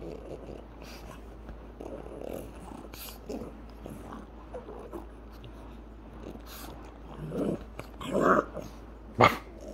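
Pug dog growling and grumbling in play while mouthing a person's finger. Two louder growls come near the end, then one short sharp bark.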